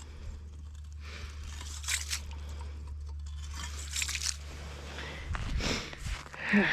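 Snow and ice crunching in a few separate short crunches, irregularly spaced, over a steady low hum, with busier crunching and handling near the end.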